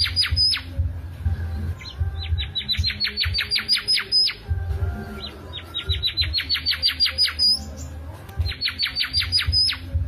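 Mangrove whistler in full song, giving phrases of quick whistled notes that climb in pitch, each ending on a higher note, with short pauses between the phrases.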